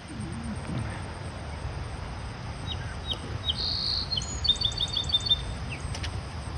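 A songbird sings one phrase of short, high, falling notes, then a buzzy note and a quick run of repeated notes, about three to five seconds in, over a steady low rumble.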